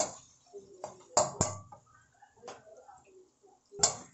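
A cooking utensil knocking and scraping against an aluminium wok while stirring chicken pieces in curry powder: a handful of sharp, separate knocks, the loudest near the start, about a second in and near the end.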